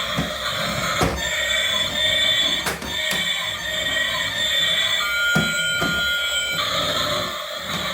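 Electronic melody of held beeping tones that change pitch every second or two, broken by several sharp clicks.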